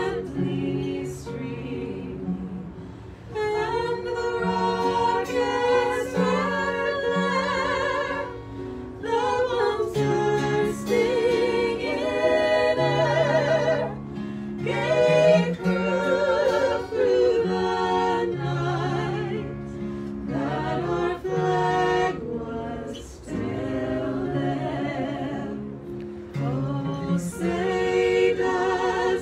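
A small group singing a patriotic song together, women's voices with a wavering vibrato leading, over acoustic guitar accompaniment, with short breaks between phrases.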